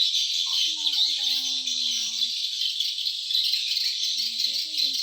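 Steady, dense high-pitched insect chorus, shrilling without a break. A short drawn-out voice-like call rises over it about half a second in, and another comes near the end.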